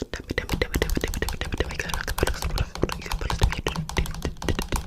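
Rapid, irregular clicking and tapping, many sharp clicks a second over a low rumble.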